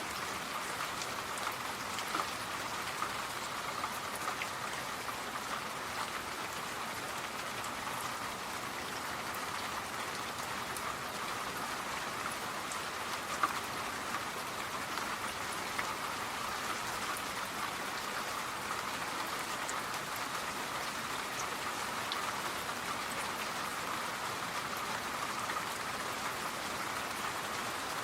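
Steady rain falling, with scattered sharper drops ticking on a surface.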